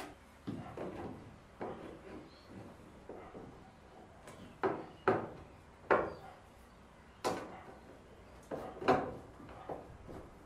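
Irregular wooden knocks and clunks as an LED panel light is slid into a timber ceiling frame and the frame's end caps are fitted by hand.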